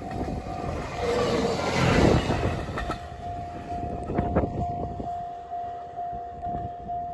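JR Hokkaido H100 diesel-electric railcar passing close at speed through snow, loudest about two seconds in and then fading. After that a level-crossing alarm rings in even repeated electronic dings, about two to three a second.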